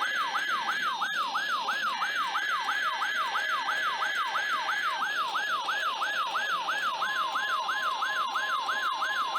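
Weather alert radio sounding its electronic siren alarm: a falling sweep repeated about three times a second. A second steady tone joins about seven seconds in.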